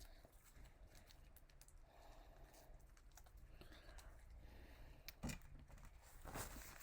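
Near silence with a few faint clicks and taps; the clearest comes about five seconds in, and another follows about a second later.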